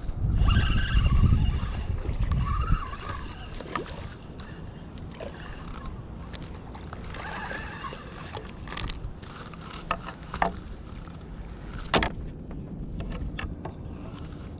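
Spinning reel being cranked to reel in a hooked fish, with scattered clicks and handling knocks from the reel and rod, one sharp click about twelve seconds in. A loud low rumble on the microphone during the first few seconds.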